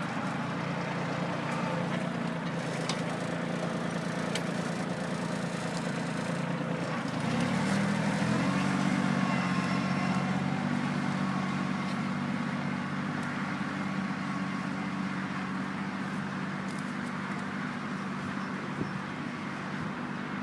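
Kioti CK2810 compact tractor's three-cylinder diesel engine running steadily while ploughing. About eight seconds in the revs rise and it gets louder, then it holds steady.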